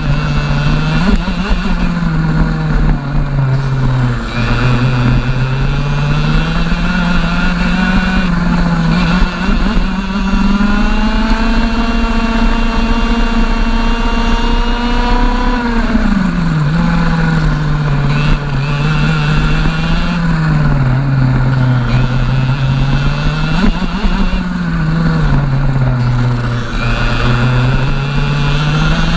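Onboard sound of a TAG racing kart's 125cc two-stroke engine at full race pace. Its pitch climbs out of each corner and drops under braking, over and over. Midway it is held high and steady for about six seconds on a straight, then falls off sharply.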